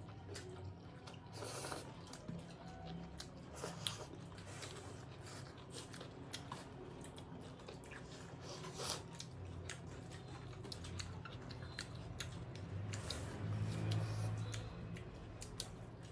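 Close-up eating sounds: chewing, lip-smacks and small wet mouth clicks of people eating rice and meat with their hands, scattered throughout over a low steady hum.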